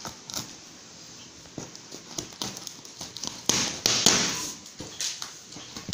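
Scissors cutting through packing tape on a cardboard box: scattered snips and taps, with a louder rasping stretch of cutting and rustling about three and a half seconds in.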